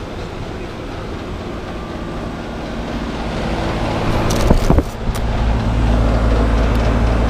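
Residential heat pump outdoor unit running, a steady low compressor hum with fan noise that grows louder over the second half. A few short clicks about four and a half seconds in.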